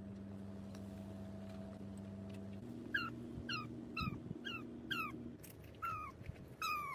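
An animal giving a run of short, high, falling squeaks, about two a second, seven in all, the last two drawn out a little longer, over a steady low hum.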